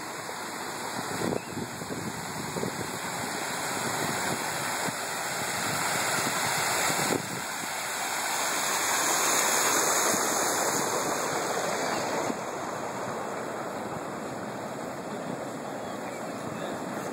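Water rushing and churning along the shallow granite channel of the Princess Diana Memorial Fountain, a steady splashing rush. It grows louder through the middle, where the water breaks white over a rougher stretch of the channel, then eases back about two-thirds of the way in.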